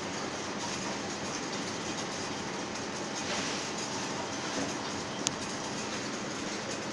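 Eye drop bottle filling and capping machine running: a steady mechanical clatter as the small plastic bottles are fed along its track and turntable, over a low steady hum. One sharp click about five seconds in.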